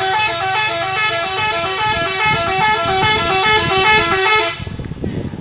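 Tour bus 'telolet' musical air horn playing a quick tune of short stepped notes, cutting off abruptly about four and a half seconds in, with a low rumble underneath.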